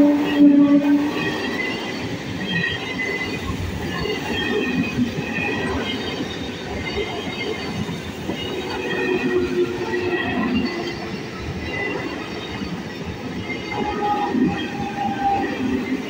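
An ICF-built EMU electric local train passing close by at speed. Its horn trails off about a second in, followed by the steady rumble of the coaches' wheels on the rails, with short, high wheel squeals coming and going.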